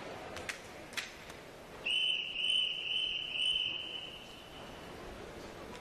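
Swimming referee's whistle: a high blast starting about two seconds in that pulses four times and then holds steady for about a second, roughly three seconds in all. It is the signal that calls the swimmers to the starting blocks. A few sharp clicks come just before it.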